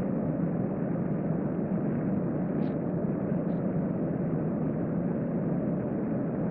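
Steady rushing hum of a hotel room air-conditioning unit, even and unbroken; no breathing or snoring is heard from the sleeper, who is in an apnea lasting twenty seconds or more.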